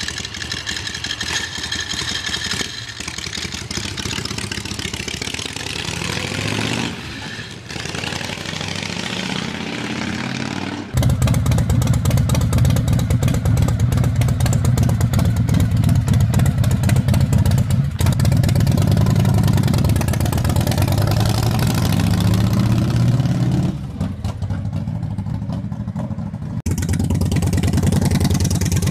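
Custom V-twin motorcycles running one after another. First a Harley-Davidson Shovelhead bobber. Then, with a sudden jump in loudness about a third of the way in, a much louder Harley-Davidson Shovelhead custom idling and revving. Near the end, a Kawasaki Vulcan 900 bobber.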